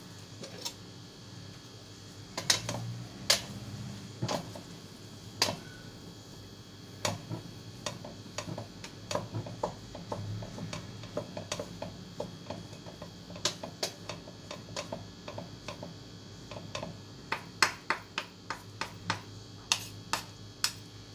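A cooking utensil clicking and tapping against a pan as fried rice noodles are stirred and tossed. The clicks come irregularly and grow quicker near the end, several a second.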